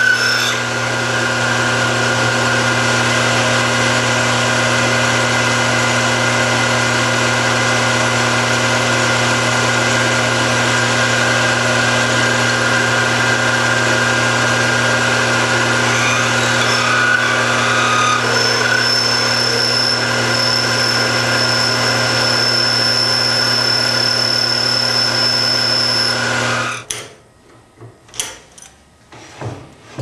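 Small metal lathe running steadily while a twist drill in the tailstock chuck bores into the metal stem of a knob, with a thin high whine joining partway through. The machine stops suddenly about 27 seconds in, followed by a few sharp knocks.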